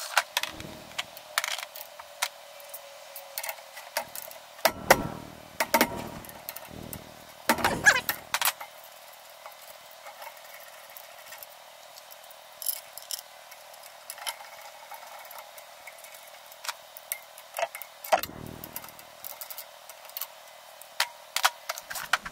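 Hand tools and steel parts being handled: the clicks and clinks of a plastic socket-set case, steel sockets and a ratchet, with several heavier knocks of metal parts being set down or moved.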